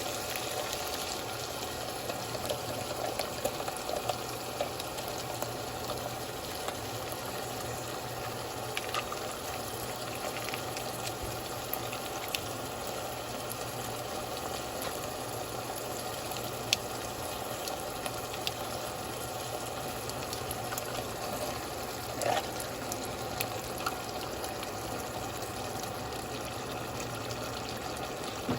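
Steady rush of water with a few light clicks and a faint low hum beneath.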